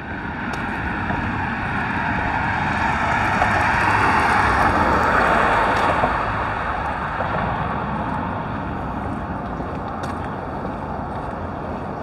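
A car driving past on the road alongside, its tyre and road noise swelling to a peak about four to five seconds in and fading by about seven seconds, over a steady low traffic rumble.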